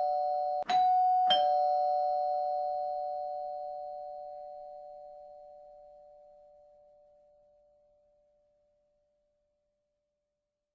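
Two-tone doorbell chime going 'ding-dong': struck twice in the first second and a half, its two tones ringing on and fading away over about six seconds.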